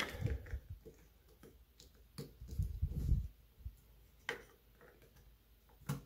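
A few light clicks and knocks of a metal faucet lever handle being worked back onto the faucet body, with a low rubbing scrape around the middle.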